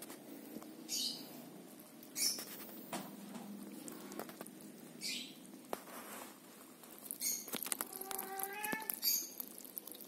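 Kittens eating boiled chicken from a plastic dish: soft wet chewing, lapping and lip-smacking, with scattered short clicks every second or two. A short pitched note sounds near eight seconds in.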